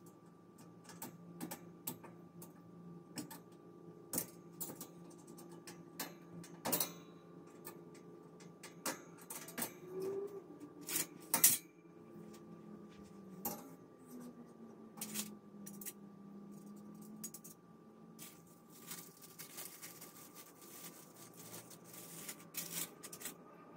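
Irregular metallic clinks and taps as the steel tubes and wire shelves of a metal shelving unit are handled and fitted together, with two louder knocks about 7 and 11 seconds in, over a faint steady hum.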